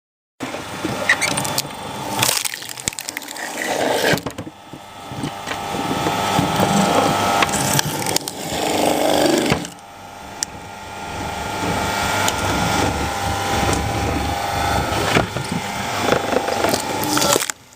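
Cone log splitter driving into a log: the machine runs under load while the wood creaks and cracks as the cone forces it apart. The sound builds, eases off sharply about ten seconds in, then builds again.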